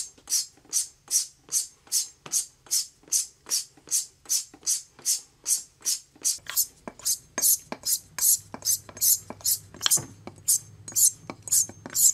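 Straight razor stroked back and forth along a hanging strop: quick, even swishes, about three a second.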